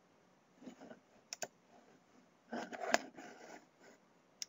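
Faint computer-mouse clicks with soft desk handling noise: a quick pair of clicks just over a second in, another near three seconds, and a sharp one near the end.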